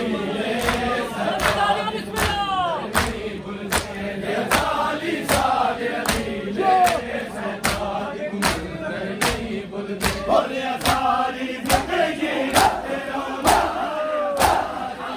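Crowd of mourners beating their chests in unison (matam), a sharp slap about every three-quarters of a second, with many voices chanting a noha refrain over the beat.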